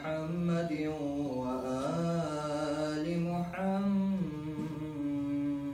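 A man reciting the Quran in Arabic in a melodic, chanted style, holding long notes that glide up and down in pitch.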